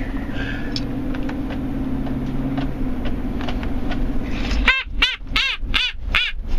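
A young child laughing hard: a run of high-pitched laugh bursts, about three a second, each rising and falling in pitch, starting about two-thirds of the way in. Before it, and under it, the steady low drone of the moving car's cabin.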